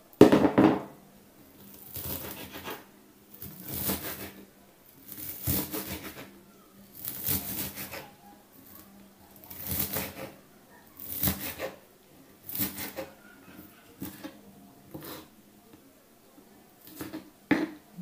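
Fresh mung bean sprouts being torn and snapped by hand on a wooden cutting board, a crisp rustling crunch about every second and a half, around ten times.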